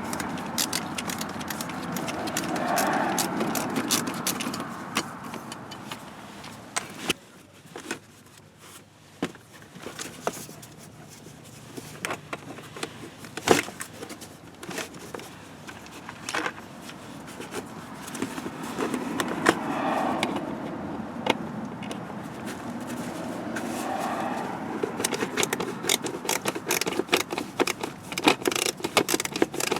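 Hand tools and fasteners being handled during a car blower motor replacement: irregular metallic clicks, jingling and scraping, with a few sharper knocks and a burst of quick clicking near the end.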